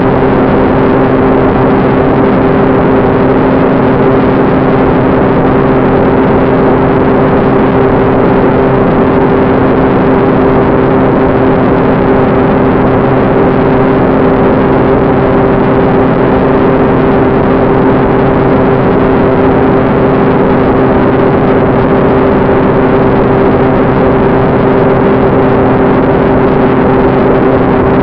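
Electric ducted fan of a radio-controlled BD-5 model jet running at steady throttle: an even, unchanging whine with two held tones over a rushing air noise.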